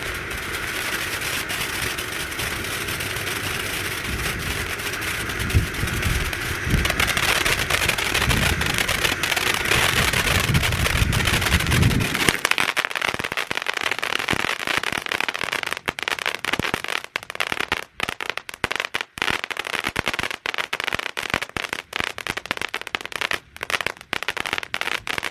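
A ground firework fountain spraying sparks with a steady loud hiss, which about twelve seconds in gives way to a rapid, uneven crackling of many small pops.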